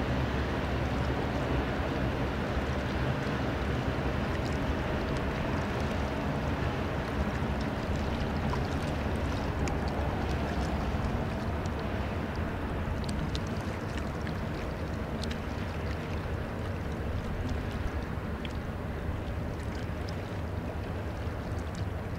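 Diesel engine of a passing river tanker barge: a steady low drone over a continuous rushing of water and wind.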